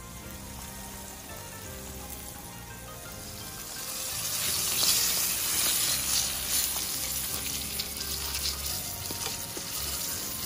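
Cornstarch-coated whole nenue and aholehole deep-frying in hot oil in a pan, sizzling and crackling. The sizzle swells loud about four seconds in. Background music plays under it.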